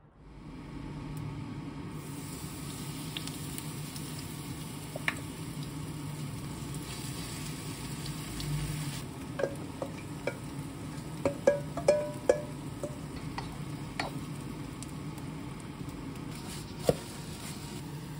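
Oil sizzling in a frying pan as a shredded-cabbage okonomiyaki mixture fries, a steady sizzle with a run of sharp clicks and knocks from about nine to thirteen seconds in.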